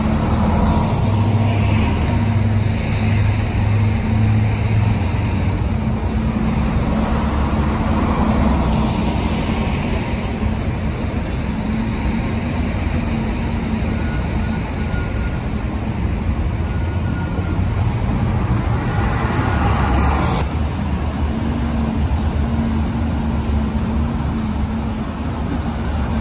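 Diesel motor coaches and a transit bus driving past one after another at close range, their engines running with a steady low hum over traffic rumble. The sound changes abruptly about twenty seconds in.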